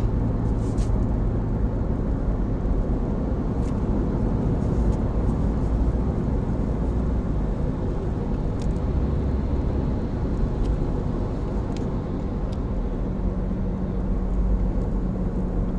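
Steady road and engine noise inside the cabin of a third-generation Honda CR-V cruising at highway speed: a continuous low tyre and engine drone.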